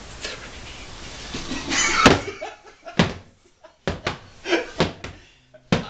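A sharp bang about two seconds in, followed by a string of separate thumps and knocks with short gaps between them.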